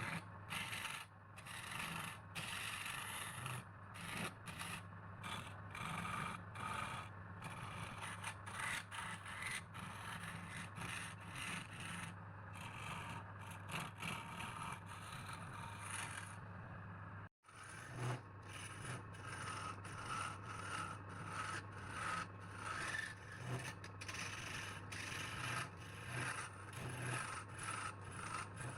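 Wood lathe running with a steady low hum while a turning tool scrapes against the spinning wood in repeated strokes with short breaks between them. The sound drops out for a moment a little past halfway.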